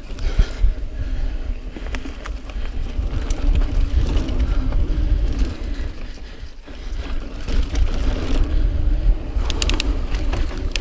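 Niner EMD 9 hardtail mountain bike ridden over dirt singletrack: tyres rolling on the trail and the bike rattling and clicking over bumps, under a low rumble of wind on the camera microphone. A quick run of sharp clicks comes near the end.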